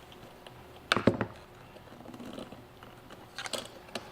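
Sharp clicks and knocks of a wire terminal and hand tools being worked off a jump box's switch: a loud knock about a second in, then a few quieter clicks later.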